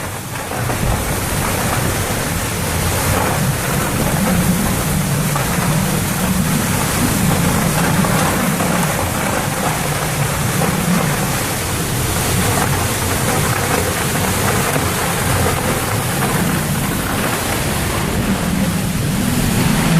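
Thunderstorm winds blowing hard: a loud, steady rush of noise that swells and eases slightly.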